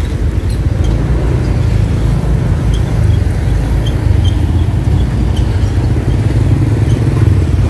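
Steady low rumble of road traffic, with motorbike engines close by.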